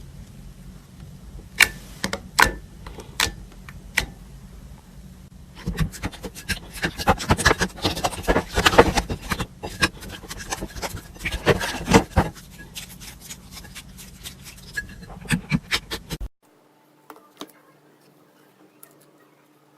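Slime being worked by hand, popping and crackling: a few sharp separate pops at first, then several seconds of dense crackling, thinning out to scattered clicks. It cuts off suddenly near the end to a much quieter stretch with a faint steady hum and light ticks.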